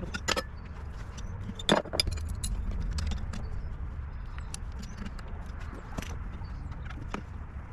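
Scattered small clicks, taps and clinks of hand tools and mower parts being handled, with a sharper knock about two seconds in, over a low steady rumble.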